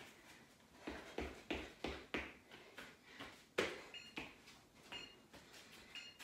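Trainers thudding and scuffing on an exercise mat in quick, uneven strokes during mountain climbers. Near the end come three short high beeps about a second apart, a workout timer counting down the end of the interval.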